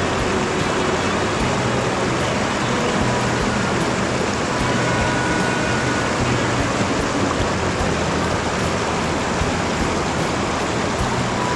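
Small mountain stream rushing and splashing over rocks in little cascades, a steady, loud, even rush of water.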